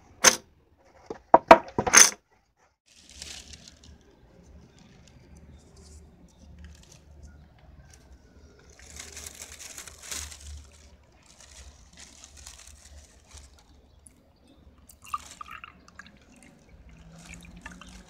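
A few sharp clacks of plastic okey tiles being handled, then brewed Turkish tea poured into a tulip-shaped glass with a soft liquid splashing and trickling.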